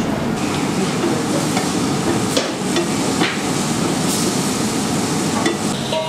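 Kitchen cooking sounds: a steady frying hiss with several sharp metal knocks and clicks of a utensil against cookware.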